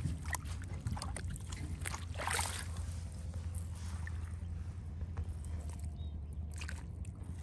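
Water sloshing and splashing over a steady low rumble, with scattered small clicks and knocks and a brief louder splash about two seconds in.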